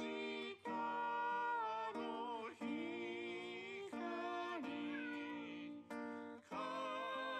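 A recorded song playing back: a voice singing with guitar accompaniment, in phrases broken by short pauses, left on to settle a cat's lonely meowing.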